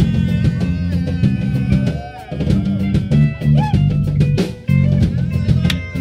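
Live rock band playing an instrumental passage, with guitar and drum kit and no vocals.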